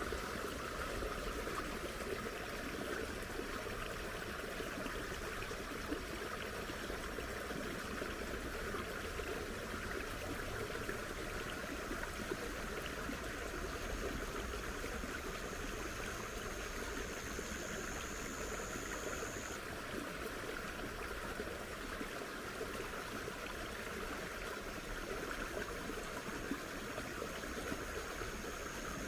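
Steady trickling of water in a rice-paddy field. A thin high tone joins about halfway through for several seconds, and again near the end.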